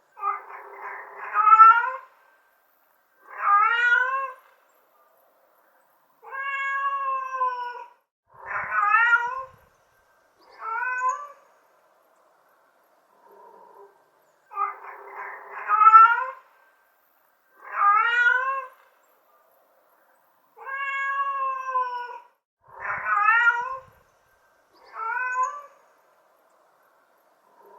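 Domestic cat meowing: five drawn-out, wavering meows a second or two apart. After a short pause the same run of five meows repeats.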